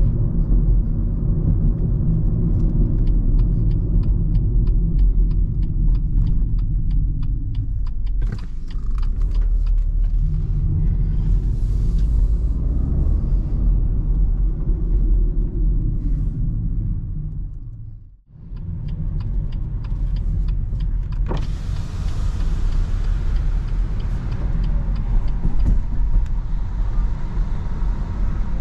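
Cabin sound of a BMW 218i Active Tourer with its 1.5-litre petrol engine, driving slowly on city streets: a steady low rumble of engine and tyres. For a few seconds early on there is a quick regular ticking of about four ticks a second. The sound drops away briefly about two-thirds of the way through, and for the last few seconds a brighter hiss of outside air and traffic comes in.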